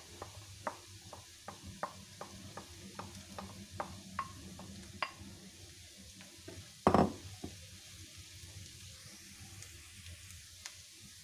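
Grated carrot and onion sizzling in oil in a frying pan while being stirred with a wooden spatula. A run of quick taps comes through the first half, and one loud knock about seven seconds in.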